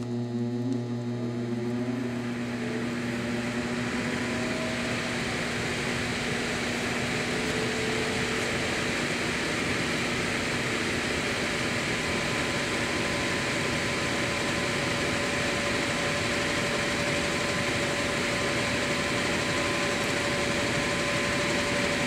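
Newly fitted blower motor in a Trane air handler starting up: a hum and a rising whine over the first few seconds as it spins up, then the blower wheel running steadily with a strong rush of air. It is turning in the proper rotation and runs much better, now that a motor with burnt windings has been replaced.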